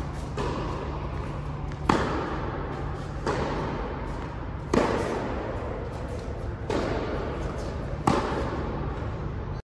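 Tennis rally on an indoor court: a racquet hits the ball loudly up close three times, about three seconds apart. Fainter pops from the far end of the court fall between the close hits, each one ringing in the large hall over a steady low hum. The sound cuts off suddenly near the end.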